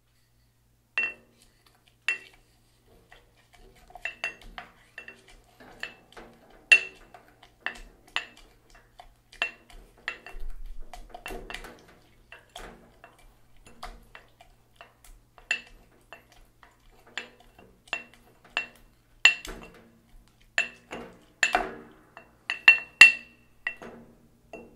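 Wooden muddler knocking and grinding against the bottom and sides of a cut-crystal mixing glass while mashing spearmint leaves in syrup. It makes irregular sharp glassy knocks, each with a brief ring, and a stretch of grinding in between; the knocks come faster and louder in the last few seconds.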